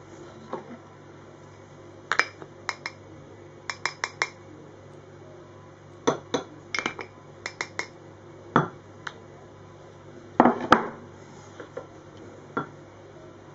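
Metal spoon clinking and tapping against a bowl and mug while cocoa powder and flour are spooned in for a mug cake. The clinks are sharp and come in quick groups of two to four, with the loudest cluster about ten seconds in.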